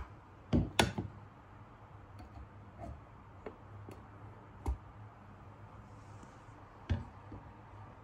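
Lid and plunger of a glass French press being fitted onto the carafe and handled. There are a couple of sharp clinks and knocks about half a second in, then a few lighter knocks later on.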